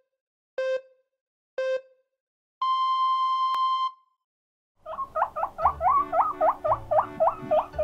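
Countdown-leader beeps: two short beeps a second apart, then one longer, higher beep. About five seconds in, a guinea pig starts its 'puipui' squeaks, a quick run of short rising-and-falling chirps, about five a second.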